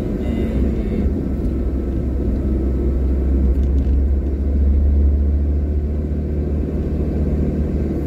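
Car interior road noise while driving: a steady low engine and tyre rumble heard inside the cabin, swelling slightly a few seconds in.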